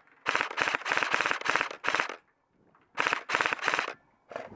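Airsoft electric rifle, a modified G&G Combat Machine, firing full-auto bursts: a rapid run of sharp shots lasting nearly two seconds, a shorter burst about three seconds in, and a brief one near the end.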